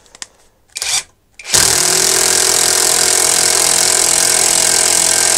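Metabo SSD 18 LT 200 BL cordless impact driver on its 150 Nm setting, hammering steadily as it drives a 10 × 120 mm hex-head lag screw into wood. The screw goes in slowly. Two short trigger blips come first; the steady run starts about a second and a half in.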